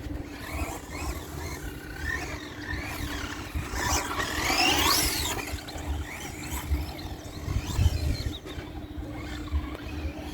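Wltoys 144001 1/14-scale RC buggy's brushed electric motor whining up and down in pitch as it accelerates and slows, loudest about four to five seconds in.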